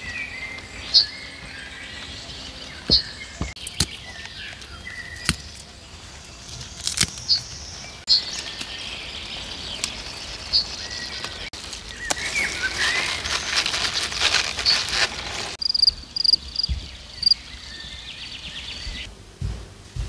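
Small birds chirping, short high calls every second or two, over rustling and a few sharp clicks.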